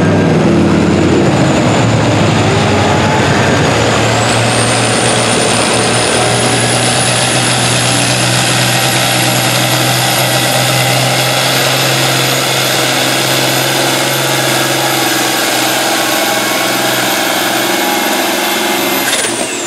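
International Harvester pulling tractor's engine run flat out under full load while dragging a weight-transfer sled, with a high whistle that climbs steadily in pitch. About a second before the end the whistle falls away sharply as the engine comes off full power at the end of the pull.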